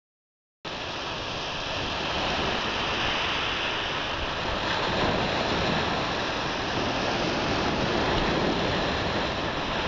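Sea surf washing in and breaking around a wooden groyne, a steady rushing sound that starts abruptly about half a second in.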